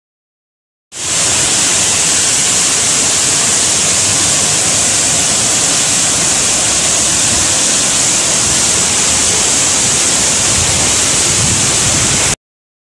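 Muddy floodwater rushing in a steady, even torrent down a concrete channel. It starts about a second in after a brief silence and cuts off abruptly just before the end.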